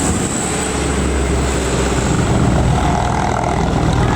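Large tour bus's diesel engine running loudly as it climbs past, a deep steady drone under a wide rushing noise.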